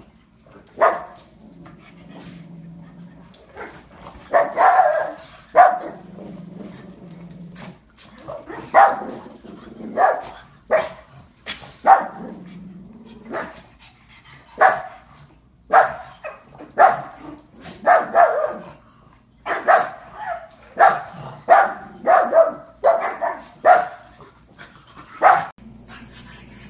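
Pug barking over and over, short sharp barks, singly and in quick runs of two or three, about one a second, stopping shortly before the end.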